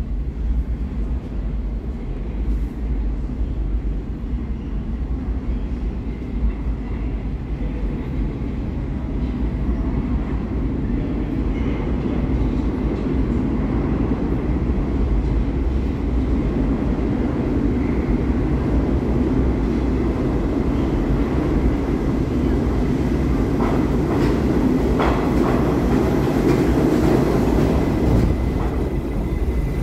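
R68A subway train approaching through the tunnel and pulling into the station: a low rumble that slowly builds and is loudest as the cars come alongside the platform, with a few sharp clicks in the last third.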